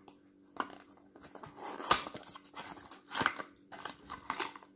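Paper carton of a liquid foundation being opened and handled, the bottle slid out: several short cardboard rustles and scrapes, with a sharp click about two seconds in.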